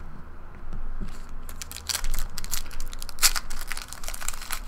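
Foil trading-card pack wrapper crinkling and tearing as it is opened by hand, a dense run of irregular crackles starting about a second in.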